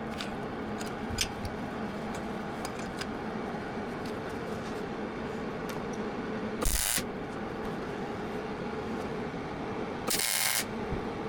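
Welder laying two short tack welds, each a loud crackling hiss of about half a second, coming about two-thirds of the way in and again near the end, over a steady background hum. The tacks are tacking a battery tray in place before it is fully welded.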